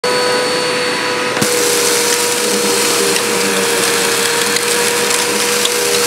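Insignia bagless upright vacuum cleaner running with a steady whine. About a second and a half in, a louder hiss with scattered ticks joins as it picks up sand from the mat.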